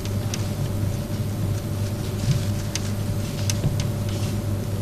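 Marker pen writing on a whiteboard: short faint scratches and taps as the letters are drawn, over a steady low electrical hum.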